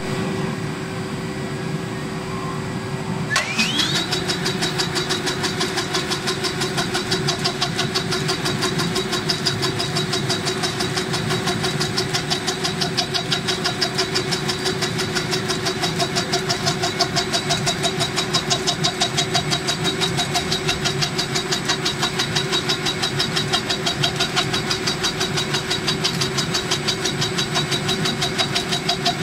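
Borghi brush tufting machine running. It hums steadily, then about three seconds in a whine rises as it speeds up. A fast, even clatter follows as the tufting tool punches filament tufts into a disc scrubber-brush block.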